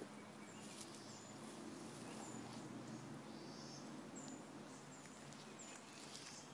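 A bird giving short, high chirps about once a second, faint, over a low steady hum.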